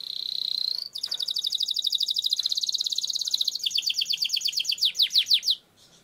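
Domestic canary singing a long rolling trill. It opens with a rising whistle, then a very fast run of rapid repeated notes that gradually slows into a few separate sweeping notes before stopping abruptly near the end.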